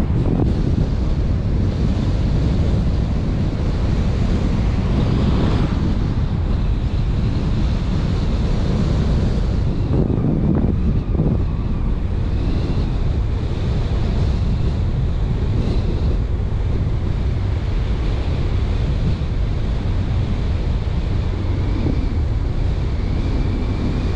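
Steady wind rumble on the microphone with road noise from a moving car.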